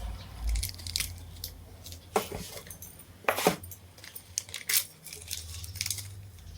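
Irregular clinks and knocks of small metal parts and hand tools being handled, a few of them sharper strikes, with a faint low hum underneath at times.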